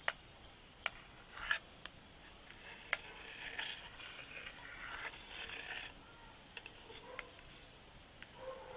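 Knife cutting through a steamed egg slab and tapping and scraping against the plate beneath: a few sharp clicks, with a stretch of scraping in the middle.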